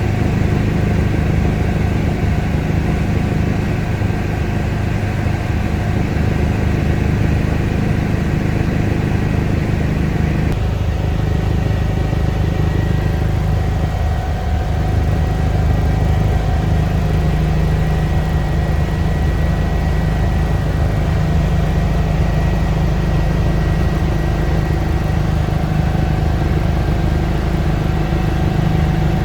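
Eurocopter EC145 helicopter in flight, heard from inside the cabin: a loud, steady drone of turbines and rotor with a steady whine over it. About ten seconds in, the upper part of the sound drops away and the low drone carries on.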